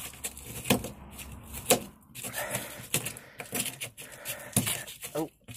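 Irregular sharp knocks and scrapes of hand work on the stripped interior floor of a Lada 2101, about one or two a second.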